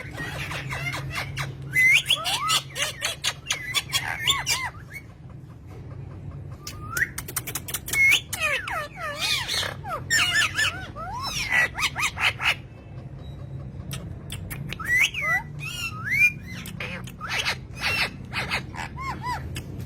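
Parrots chattering and squawking: three bouts of quick whistled calls that swoop up and down, mixed with sharp clicks, with short pauses between them. A low steady hum runs underneath.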